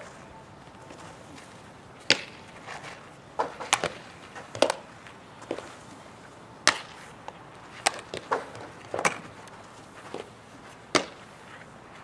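Softball infield practice: a series of sharp cracks and smacks, about ten in all at uneven intervals, from a bat hitting ground balls and the softball popping into leather fielding gloves.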